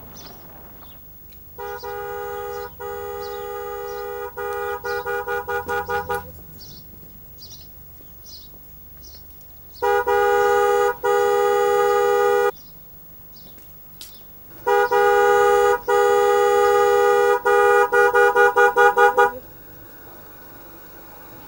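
Two-tone car horn honked to get a gate opened: long blasts, each round ending in a run of quick toots, three rounds with pauses between. Faint bird chirps between the first blasts.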